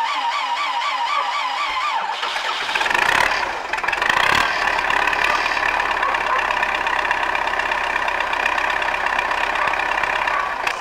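MTZ-type tractor's diesel engine being started: the electric starter whines, its pitch rising and falling a few times a second as it cranks, then about two seconds in the engine catches and settles into a steady run.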